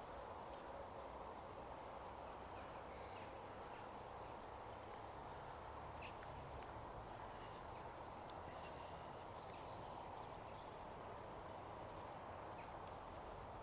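Quiet outdoor morning ambience: faint, scattered bird chirps over a steady low background hum, with one sharp click about six seconds in.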